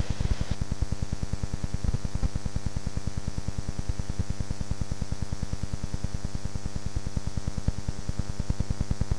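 Steady electrical hum with a regular low buzzing pulse, about seven pulses a second, unchanging throughout.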